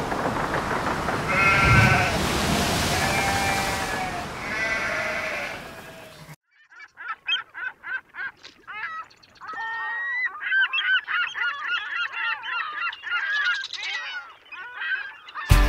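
Surf and wind noise with a few drawn-out animal calls over it; after a sudden cut about six seconds in, a flock of birds calling, many short, quickly bending calls. Music starts just before the end.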